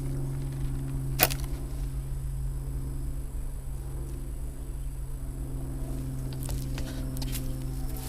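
Husqvarna 385XP two-stroke chainsaw idling steadily, with one sharp crack about a second in and a few light clicks near the end.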